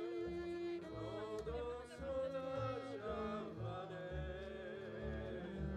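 Background music: slow, sustained notes over a bass line that changes every half second or so.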